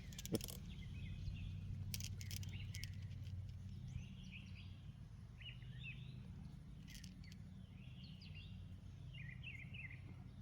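Small birds chirping intermittently over a steady low outdoor rumble, with a few faint clicks.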